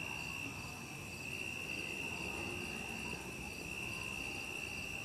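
Night insects chorusing, crickets or similar: one steady high-pitched trill with a softer, higher chirp repeating about twice a second.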